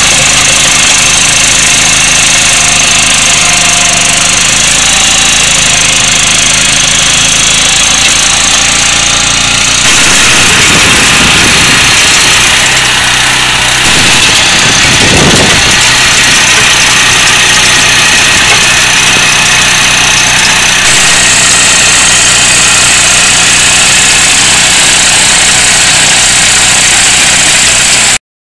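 Engine of an agria 2500 two-wheel tractor with a stone burier, running steadily. The sound changes abruptly twice, dips and rises briefly about halfway through, and cuts off suddenly near the end.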